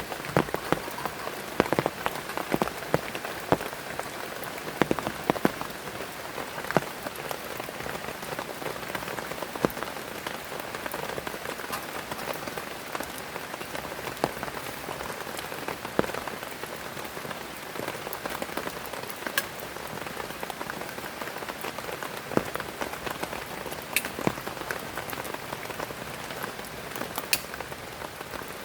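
Heavy rain falling steadily, with frequent sharp, irregular drop impacts close by, thicker in the first several seconds.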